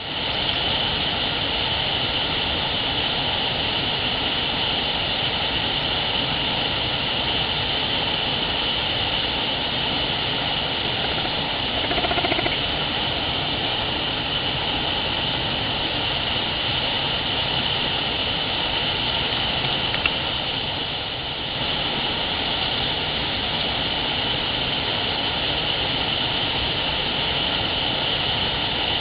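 Steady rushing of a small waterfall pouring into a rocky stream pool, an even noise that does not let up. A short pitched sound rises above it about twelve seconds in, and a single click comes near twenty seconds.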